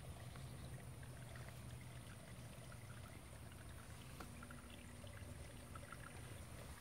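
Quiet outdoor background: a faint, steady low rumble with a few small scattered ticks. No engine is running.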